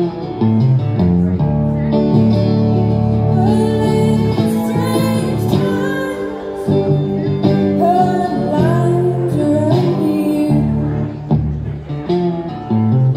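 A woman singing a country-blues song over her own resonator guitar, the guitar's low notes sounding steadily under the voice.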